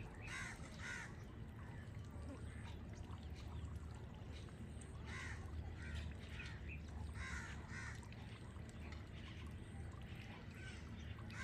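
Crows cawing faintly, one call after another at irregular intervals, over a steady low background rumble.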